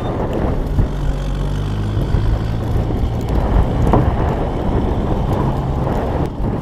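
Blizzard wind blowing hard across the microphone, with a vehicle engine running at a steady low pitch underneath.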